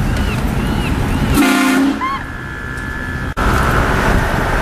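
Truck-mounted air train horn sounding one short blast, about half a second long, a second and a half in. A steady high-pitched tone follows, broken briefly by a sudden cut.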